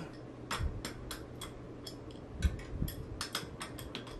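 Irregular sharp metal clicks and clinks, about fifteen in all, as a freewheel removal tool is worked against a bicycle's multi-speed freewheel.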